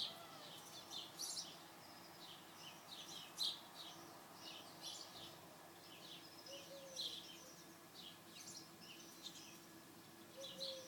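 A dense chorus of many small birds chirping without a break, mostly house sparrows and tree sparrows, over a faint steady low hum.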